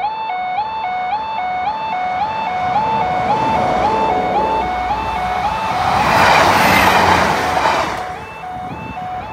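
Two-tone warbling alarm of a miniature-warning-light level crossing, stepping between two pitches about twice a second, while a Class 156 diesel multiple unit approaches and runs past over the crossing. The train's noise grows from about three seconds in and is loudest about six to eight seconds in, drowning the alarm, then drops off suddenly.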